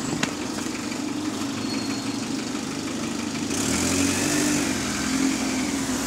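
Diesel engine of an Alexander Dennis Enviro200 single-deck bus running as the bus pulls away, with a steady rhythmic knock that is taken for rod knock. A hiss joins about halfway through.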